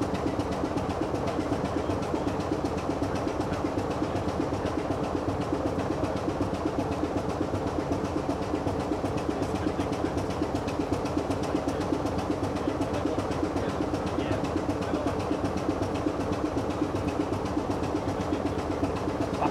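Diesel locomotive engine running with a steady drone that does not rise or fall.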